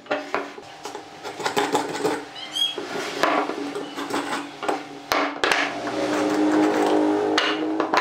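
Wooden workpieces and a marking gauge handled on a wooden workbench: a series of knocks, clunks and scrapes as the pieces are set down and moved. A steady low hum comes up over the last couple of seconds.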